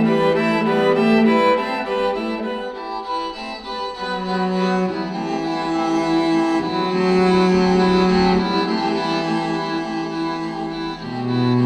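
Bowed string music, cello and violins playing long sustained notes that change every second or two, with a deeper bass note entering near the end. It is reproduced through HiFiMan Audivina headphones as a sound demo.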